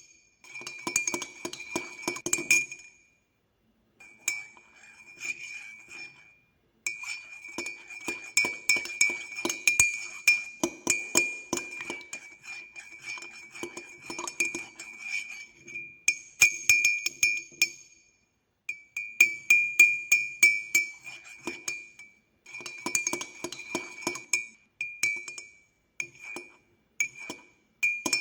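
Metal teaspoon stirring sugar into a cup of coffee with milk, rapid clinks against the sides of the ceramic cup that each leave a short ringing tone. The stirring comes in spells of a few seconds with brief pauses between, the spells growing shorter toward the end.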